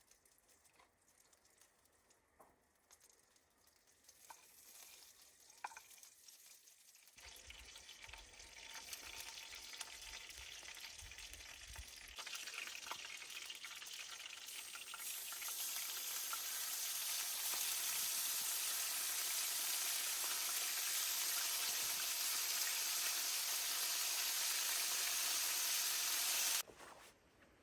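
Sizzling over a small campfire, growing steadily louder through most of the stretch and cutting off abruptly near the end, with a few faint crackles in the first seconds.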